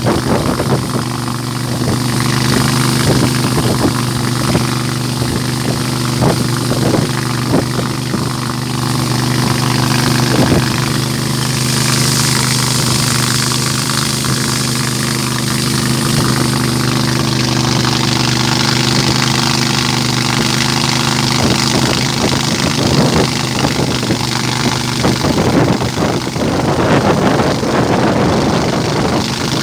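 Small motorboat's engine running steadily under way, with a rushing hiss of wind and water over it that swells at times.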